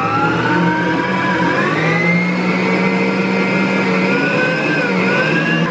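Electric stand mixer running at speed, its balloon whisk beating the first half of the flour and water into a creamed cake batter. A steady motor whine whose pitch creeps up over the first couple of seconds, then holds.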